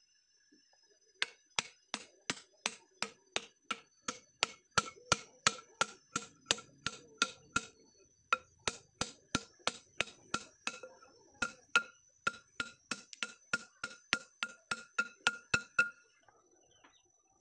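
A heavy chopping blade repeatedly striking a wooden plug to drive it into the end of a steel pipe, about three sharp knocks a second, each with a short metallic ring, pausing briefly twice.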